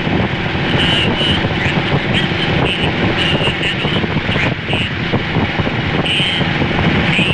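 Motorcycle engine running steadily while under way, with a dense rumble of road and wind noise.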